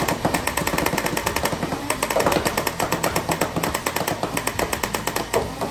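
Nerf Rival Perses fully automatic blaster firing foam Rival balls in an unbroken rapid stream, about ten shots a second, over the steady hum of its motors, emptying its magazine.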